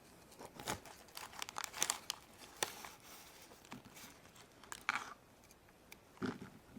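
Faint, irregular handling noise: scattered light clicks and crinkly rustles from hands working with small toys and Play-Doh, a little louder about five seconds in and again near the end.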